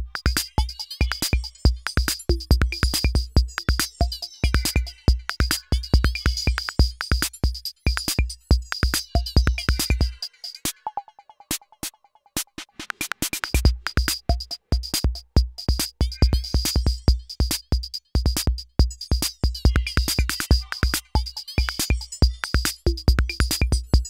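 Roland TR-6S drum machine playing a factory pattern: a steady deep kick drum under fast hi-hats and short pitched percussion notes. About ten seconds in, the kick drops out for roughly three seconds, leaving the hi-hats and percussion, then comes back in.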